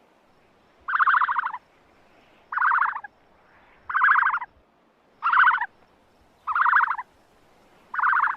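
Ostrich calling: six short, buzzy, rapidly pulsed calls, evenly spaced about a second and a half apart.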